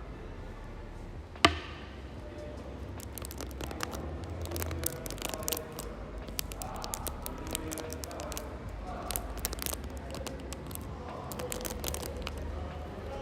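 One sharp knock about a second and a half in, then a long run of many small, quick clicks and taps.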